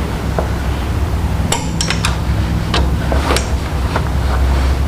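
Metal hand tools clinking and clicking against the bolts of a crankshaft adapter as they are torqued with a click-type torque wrench. A cluster of sharp clinks comes about a second and a half in, and a couple more follow a little later. A steady low hum runs underneath.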